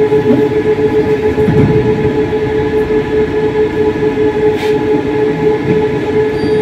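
Moderus Beta MF20AC low-floor tram running at steady speed, heard from inside the car: a steady whine over the rumble of the wheels on the rails.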